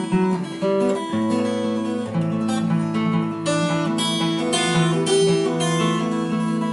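Steel-string acoustic guitar played solo, chords strummed and picked in a steady rhythm, as the instrumental introduction to a chanson before the singing begins.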